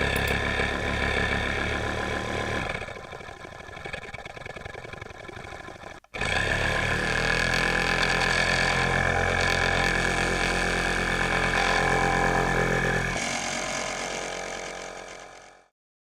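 Digger engine running steadily. It drops lower a few seconds in, cuts off abruptly about six seconds in, then resumes louder and fades out near the end.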